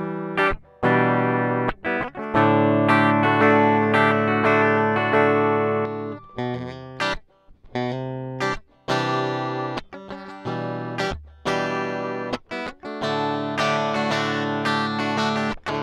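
Yamaha RGX512J electric guitar played as its dry signal: a riff of ringing chords and notes cut off sharply into short stops, several times.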